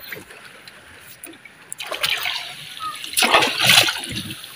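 Water splashing and sloshing at the surface as a fish net with its catch is handled by hand, in two swells, the louder one a little past the middle.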